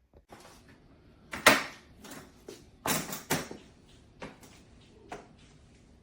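A series of sharp knocks and clacks, the loudest about one and a half seconds in and a close pair around three seconds in, with smaller clicks between.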